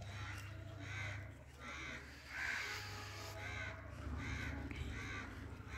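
A crow cawing repeatedly, a series of about eight harsh caws, the loudest about two and a half seconds in.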